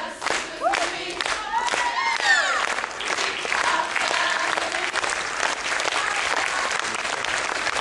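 Audience applauding, with cheering and whooping voices over the clapping in the first two or three seconds.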